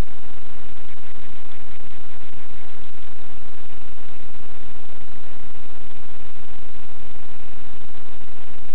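Steady, loud hiss with a faint buzzing tone running through it: the recording's own electronic noise, with no distinct event standing out.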